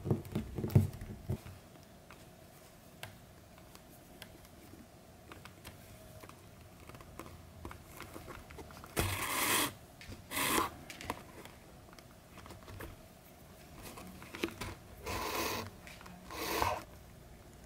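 Thread being drawn through the stitching holes of a leather panel during hand stitching: short rasping pulls, twice about halfway through and twice more near the end, with faint handling knocks at the start.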